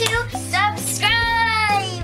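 Background music under a girl's voice, with one long, high sung note held for most of a second near the middle.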